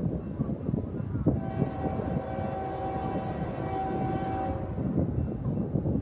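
Air horn of an approaching freight locomotive, the leading CSX ES44AC 3071, sounding one long steady blast of about three seconds that starts about a second and a half in, over a low rumbling noise.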